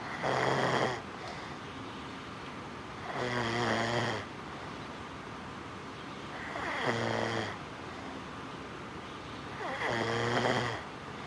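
A man snoring heavily in his sleep: four loud snores, each about a second long, coming roughly every three seconds.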